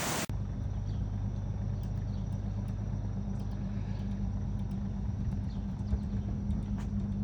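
Boat engine running steadily with a low, even hum, the boat under way.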